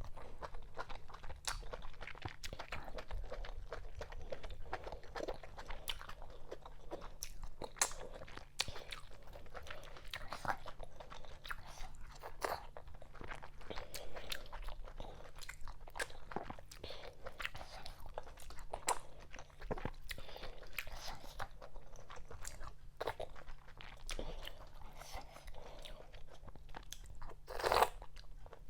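Close-miked chewing and mouth sounds of someone eating fufu with okra vegetable soup: a steady run of clicks and smacks, with one louder burst near the end.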